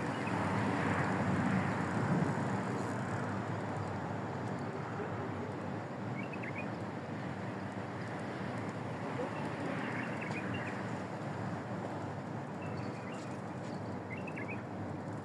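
Steady outdoor background noise with faint voices, and a few short high chirps now and then.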